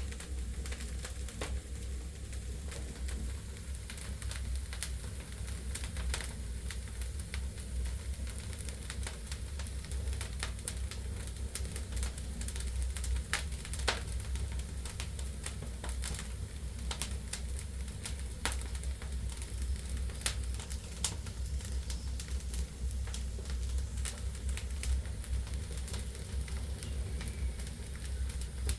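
Wood fire burning in a fireplace: logs crackling with irregular sharp pops and snaps over a steady low rumble of the flames.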